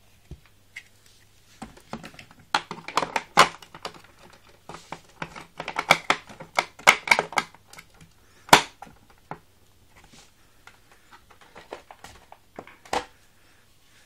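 Irregular clicks and knocks of hard plastic being handled: the upholstery tool and hose of a switched-off Hoover Turbopower 2 upright vacuum cleaner. The clicks come in a quick cluster, followed by one loud sharp knock about halfway through and a couple more near the end.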